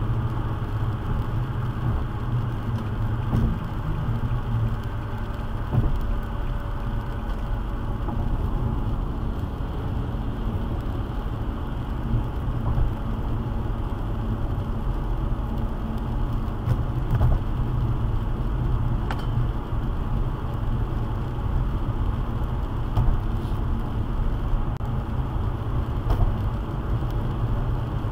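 Car cruising on a wet highway, heard from inside the cabin: a steady low rumble of engine and road with the hiss of tyres on wet pavement, and a few light ticks scattered through.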